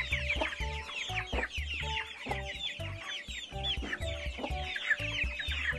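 A brood of young chicks peeping continuously: many short, high, falling chirps overlapping one another. Background music with a steady low beat plays underneath.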